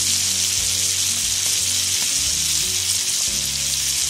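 Coated sole fillets shallow-frying in hot oil in a nonstick pan: a steady, dense sizzle. The fillets are fried golden and crisp.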